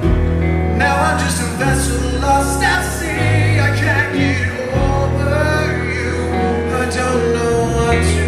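Male lead singer singing a rock ballad live over a full band, with held bass notes underneath; the voice comes in about a second in.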